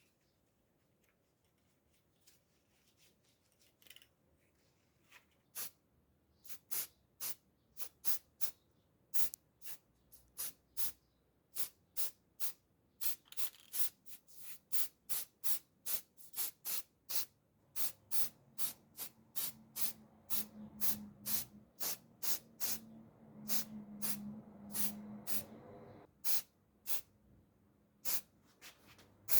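A run of short, sharp hissing bursts like quick sprays, sparse at first and then about two a second. A low steady hum sounds under them for several seconds in the latter half.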